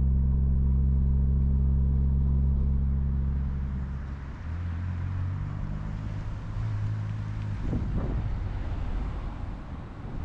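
Suzuki Jimny JB64's small three-cylinder engine running steadily while driving, its drone falling in pitch and level about four seconds in as it eases off. After that there is steady road and wind noise, with a couple of soft knocks about eight seconds in.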